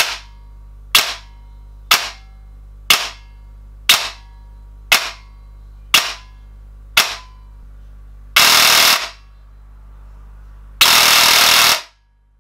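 Electric airsoft rifle (Specna Arms SA-E10 with a DSG double-sector gearbox and a T238 BL-480 brushless motor) firing eight single semi-auto shots about one a second, then two short full-auto bursts of about a second each, at a rate of about 38 BBs a second.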